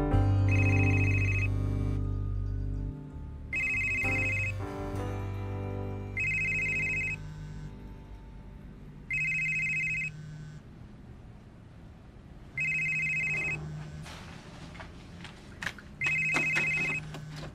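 Telephone ringing: six rings of about a second each, roughly three seconds apart. Background music fades out under the first few rings.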